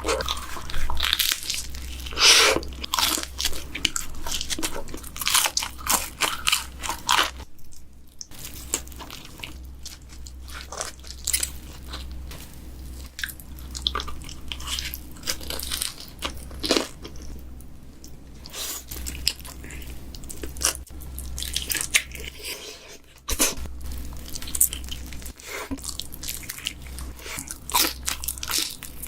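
Close-miked biting and chewing of pizza, the crust crunching in many quick crackling clicks, cut together from one bite to the next. A steady low hum runs underneath.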